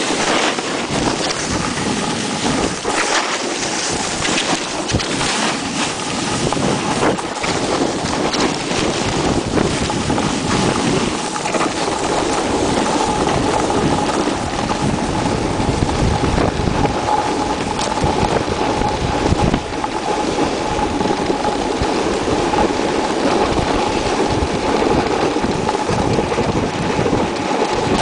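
Wind rushing over the camera microphone of a snowboarder riding downhill, mixed with the board scraping and hissing over packed snow. The noise is loud and steady, with rougher scrapes in the first third.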